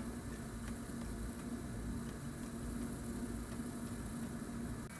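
A steady low mechanical hum with a faint tick or two.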